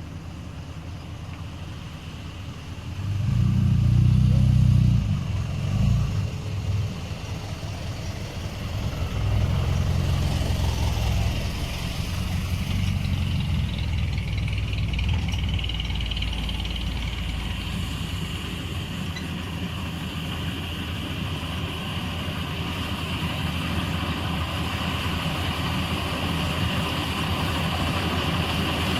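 Engine of a small World Star rice combine harvester running. It gets louder for a few seconds about three seconds in, then runs steadily.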